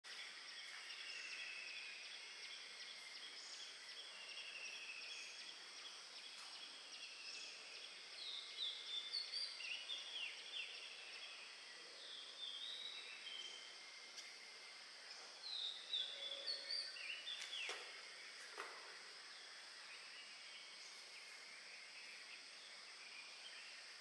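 Forest insects keep up a steady high drone while birds call in short, quick chirping notes, in two bouts a third of the way in and again about two-thirds of the way in.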